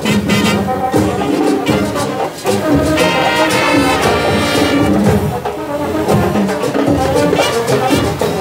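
Marching band playing a lively tune, brass and saxophones carrying the melody over a steady percussion beat.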